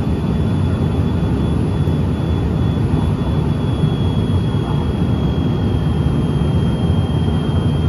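Steady cabin noise of a Cessna Citation XLS business jet in flight, heard inside the cabin: a dense, even low rumble from its twin rear-mounted Pratt & Whitney PW545A turbofans and airflow, with a thin high whine held over it.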